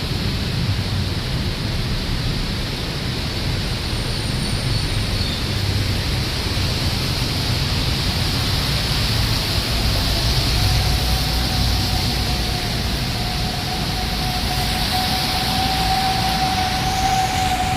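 Steady rumble and hiss of road traffic and rain, heard from a moving vehicle. About ten seconds in, a steady high tone joins and grows louder toward the end.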